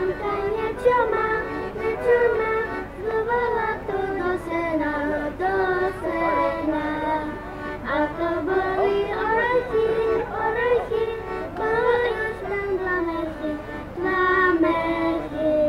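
A child singing a Slovak folk song in Slovak, accompanied by a piano accordion.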